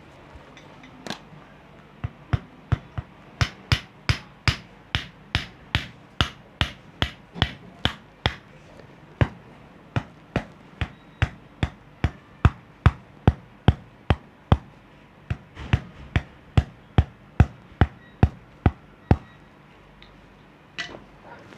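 Percussive massage, hands striking the body in a long, even run of sharp slaps, about two or three a second, that stops near the end.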